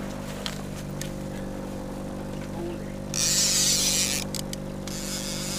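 Boat's outboard motor running steadily at trolling speed. About three seconds in, a loud high hiss lasts under two seconds.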